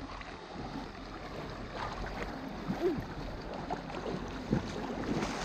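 River water sloshing and swirling around the legs of someone wading through it.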